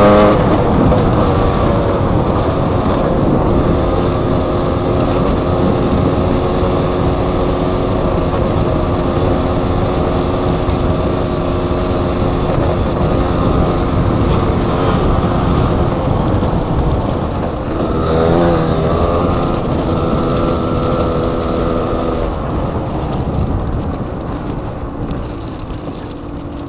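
Dual-sport motorcycle engine running under way over gravel, with rough tyre and wind noise; the engine note rises and falls with throttle changes around the start and again about two-thirds of the way through, then eases off and quietens near the end.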